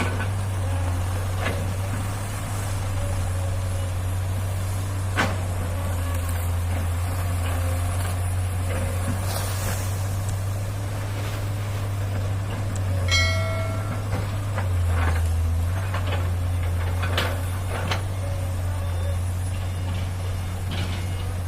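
Heavy diesel engine running steadily with a low hum at a loading site, with a few sharp knocks scattered through it and one short beep about thirteen seconds in.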